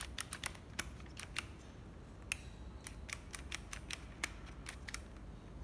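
Irregular light clicks and taps, about three a second, from handling a National 24V cordless hammer drill and the leads hooking an 18V battery to it; no motor runs, as the 18V battery is not enough to drive it.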